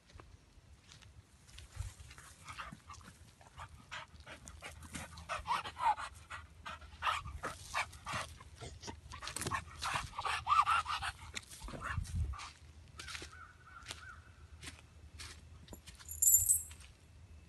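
Chained pit bull terrier whining and yipping and panting, with many short metallic clicks of its chain links rattling. Near the end, a brief high chirp is the loudest sound.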